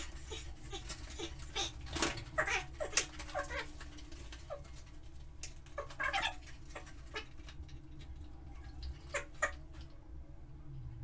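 Fast-forwarded sound played at four times speed: a stream of quick clicks and short squeaky, chipmunk-like chirps, thickest in the first few seconds and thinning out after.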